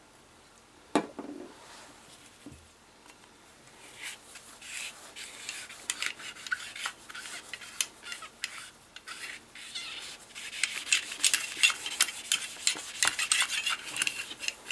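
A metal cleaning rod with a patch is worked back and forth through the barrel of a Ramset powder-actuated nail gun, making a fast, busy scraping and clicking of metal on metal that starts about four seconds in and grows busier toward the end. A single knock comes about a second in.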